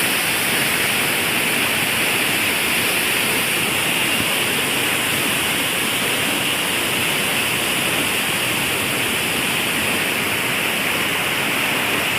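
Waterfall pouring into its pool, a loud, steady rushing of water.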